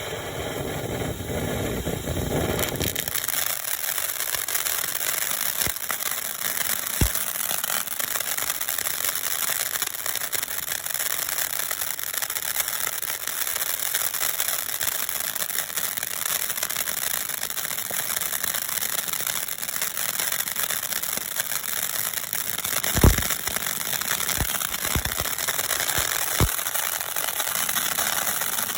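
Ground fountain firework burning with a steady hiss of spraying sparks, starting about three seconds in, with a few sharp pops, the loudest a little past the two-thirds mark.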